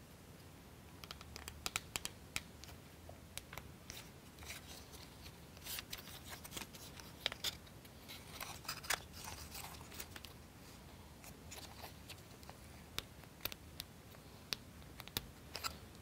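Small plywood model-kit parts handled and fitted onto a wooden chassis by hand: scattered light clicks and short scrapes of wood on wood, at an irregular pace.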